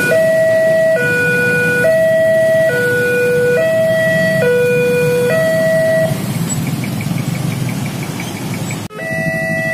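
Railroad level-crossing warning alarm: an electronic two-note signal switching between a low and a high note about once a second, which stops about six seconds in as the barriers lift after the train has passed. Motorcycle engines idle underneath, and near the end another crossing alarm starts with a different pattern of several notes.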